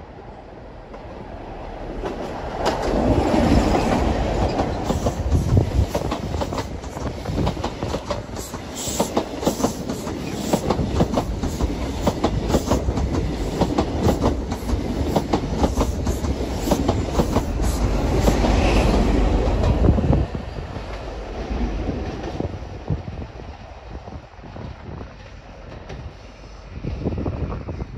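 A Midland Pullman High Speed Train, powered by Class 43 diesel power cars, passes through a station at speed. A rumble builds as the leading power car comes by, then a fast clickety-clack of wheels over the rail joints runs on as the carriages pass. A second loud swell comes about two-thirds through as the rear power car passes, after which the sound drops away and fades.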